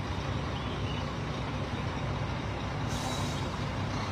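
Heavy truck engine running steadily, with a short hiss about three seconds in.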